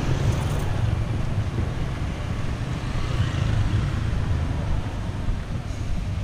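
Low, steady rumble of outdoor street noise that slowly eases off.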